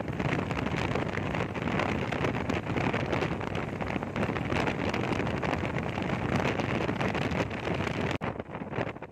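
Wind buffeting the microphone over the running noise of a moving vehicle travelling along a road. The sound changes suddenly about eight seconds in.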